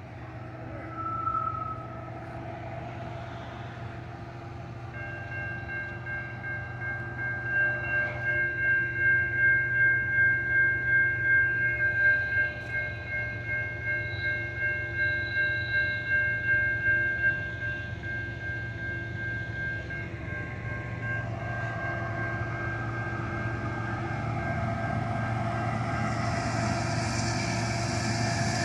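Railroad grade-crossing warning bell ringing steadily with a pulsing beat, starting about five seconds in, while the crossing is active. In the last few seconds the rumble of an approaching CN freight train grows louder.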